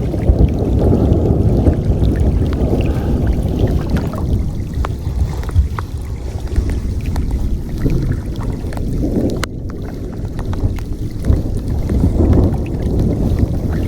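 Storm wind buffeting the microphone in a loud, uneven rumble that swells and eases, with water moving and scattered light ticks of rain.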